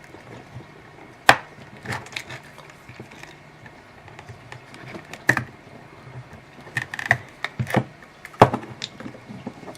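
Irregular clicks and knocks of a cheap power adapter's plastic case being pried at and handled. There is a sharp knock about a second in and a cluster of knocks between about seven and eight and a half seconds in.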